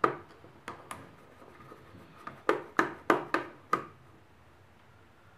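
Small screwdriver clicking and scraping in the head of a laptop motherboard screw as it is unscrewed beside the cooling fan: a few sharp clicks in the first second, then a quick run of about six clicks around the middle.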